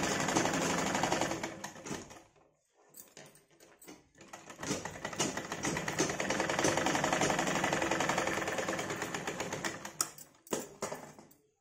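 Sewing machine stitching a seam with a rapid, even clatter, stopping about two seconds in and starting again for a longer run. Near the end, a few sharp separate clicks as scissors snip the thread.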